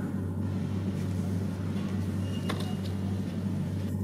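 Steady low hum, with one short click about two and a half seconds in.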